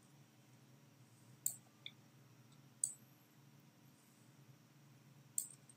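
Computer mouse button clicking a few times at irregular intervals, over a faint steady room hum.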